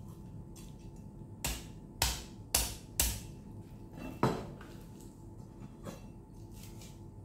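Cleaver chopping into a whole raw chicken on a cutting board to split it open: four sharp chops about half a second apart, then a fifth, the loudest, about a second later.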